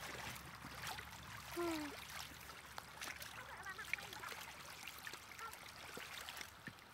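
Faint trickling, lapping water with scattered small clicks, and a short falling cry about one and a half seconds in.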